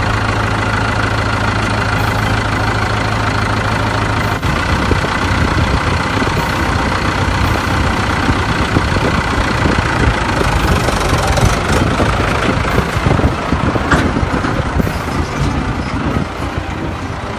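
Tractor engine running: a steady low hum that turns rougher and more uneven about four seconds in.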